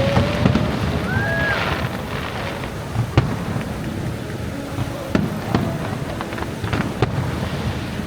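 Fireworks going off: sharp bangs a second or two apart, with a short rising whistle about a second and a half in, over a steady background rumble.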